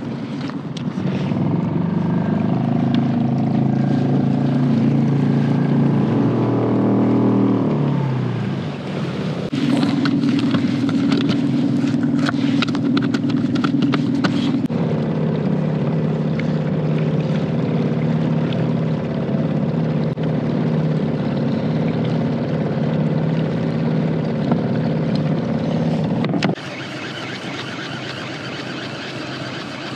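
A small motor driving the fishing kayak, running with a steady hum. Its pitch drops about 8 seconds in and settles at new speeds near 10 and 15 seconds in, then it cuts off abruptly a few seconds before the end.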